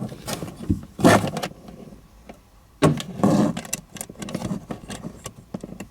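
Handling noise from wiring and small parts being worked under a dashboard: rustling and clattering in two short bursts, about a second in and again about three seconds in, with light clicks between.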